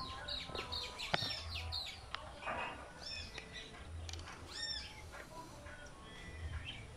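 Birds chirping, a short arched chirp repeated every second or two, with a couple of faint clicks about a second and two seconds in.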